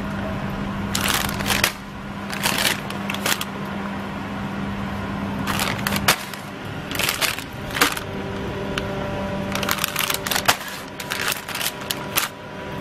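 Clear plastic bags of broccoli crinkling and rustling in repeated short bursts as they are handled, set on a digital scale and lifted off again. A steady low hum runs underneath.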